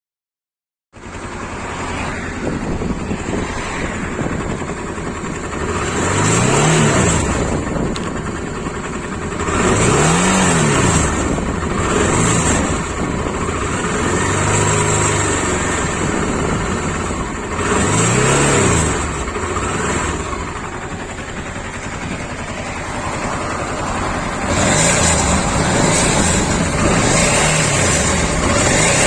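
Honda Africa Twin RD07's 750 cc V-twin engine starting up, then running with a steady idle and blipped up and back down several times, roughly every four seconds.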